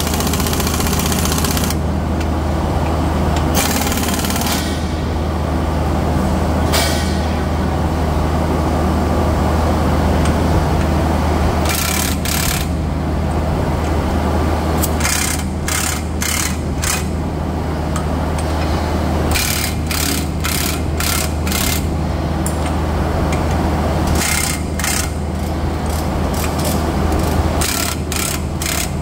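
Repeated short bursts of a pneumatic impact wrench working the bolts at a refiner rotor hub, in groups of several quick bursts, over a steady low machinery hum.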